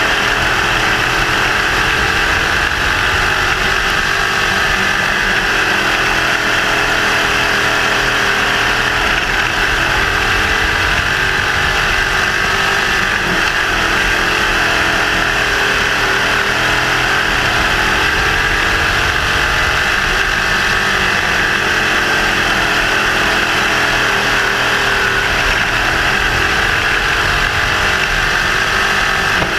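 Sprint car's 602 crate small-block V8 running hard, heard from inside the cockpit. The engine note dips and climbs again every few seconds as the car goes around the dirt oval.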